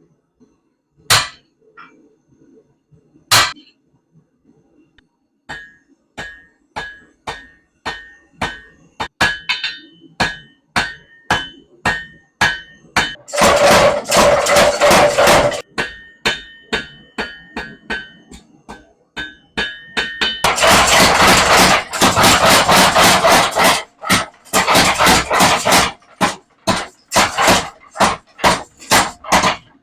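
Blacksmith hammering hot steel on an anvil, the anvil ringing after each blow, at about two blows a second. Twice this gives way to long runs of rapid, continuous blows from a Little Giant power hammer.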